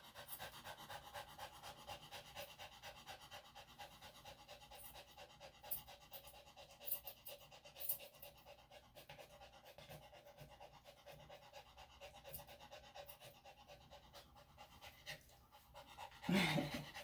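Senior Maltese/Shih-Tzu dog panting rapidly and steadily, worn out from struggling against being held for grooming. A few light clicks fall around the middle, and a brief louder sound comes near the end.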